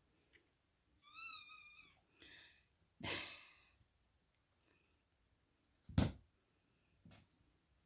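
A kitten mews: a high, wavering cry about a second in, then a shorter, fainter one. A short rush of noise follows, and a sharp thump about six seconds in is the loudest sound.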